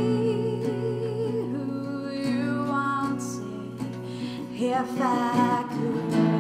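Background music: a slow song with a singing voice over guitar.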